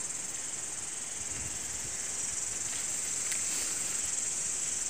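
A steady, high-pitched chorus of jungle insects droning without a break.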